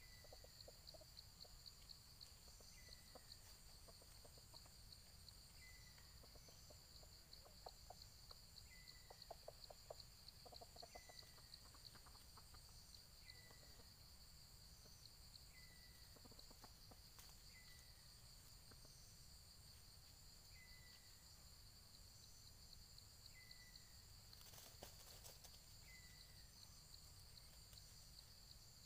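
Faint soft clucking of a red junglefowl, mostly in the first half, over a steady high insect buzz, with a short falling chirp repeating every two to three seconds.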